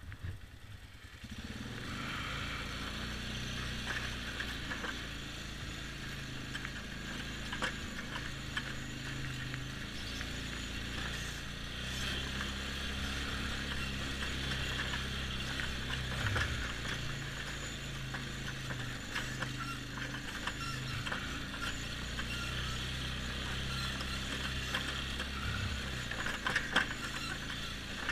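2007 Polaris X2 ATV engine running as the machine is ridden. It picks up about a second in, and its note steps up and down with the throttle, over a steady rushing hiss.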